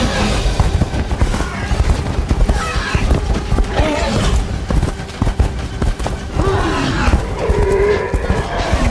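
Dramatic film score over sound-designed dinosaur fight effects: growling, bellowing calls that rise and fall in pitch about four seconds in and again near the end, over a run of heavy thuds and crashes.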